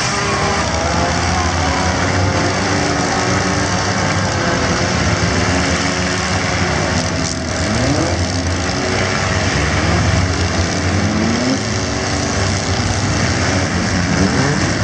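Engines of a field of four-cylinder compact cars running and revving together in a demolition derby heat, a continuous loud din in which separate engines rise and fall in pitch.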